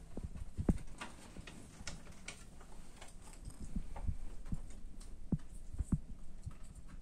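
Scattered soft, low thumps and knocks at irregular intervals, with a few light clicks mixed in.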